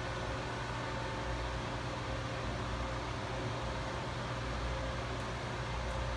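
Steady machinery hum with a constant hiss, a low electrical drone and a few thin steady tones running unchanged, with a few faint ticks.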